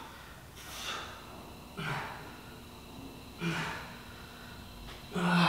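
A man breathing hard under exertion through a timed bodyweight interval: four forceful exhales about one every one and a half seconds, some half-voiced, the last the loudest.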